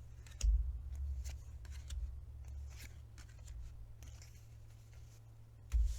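Tarot cards and paper being handled: scattered soft clicks and rustles, with a low bump about half a second in and another near the end.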